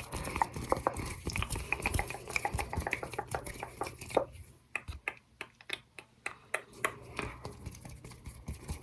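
Rapid tapping on a candle in a container shaped like a drink can, with short clinking rings. The taps are quick and dense for the first few seconds, then thin out to scattered single taps.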